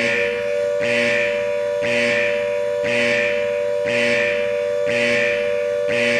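Timer's loud siren-type alarm: a wail held on a steady pitch, with a pulsing tone repeating about once a second.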